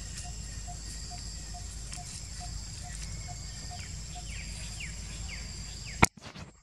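Outdoor forest ambience: a low steady rumble under a high, steady insect drone, with a soft call repeated about twice a second and a few quick falling bird chirps past the middle. A sharp click about six seconds in is the loudest sound, and after it the background drops away.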